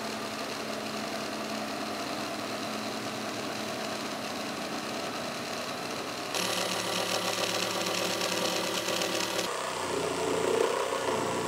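Cordless jigsaws cutting poplar plywood, the motor and reciprocating blade running steadily. The sound changes abruptly twice, getting louder and brighter about six seconds in.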